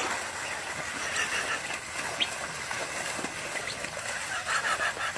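Birds calling in short runs of chirps over a steady hiss, about a second in and again near the end.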